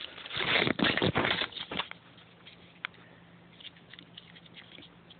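Clear plastic packaging bag crinkling and rustling as a headset cable and its in-line controller are unwrapped, loudest for about the first two seconds. After that only a few faint handling clicks remain.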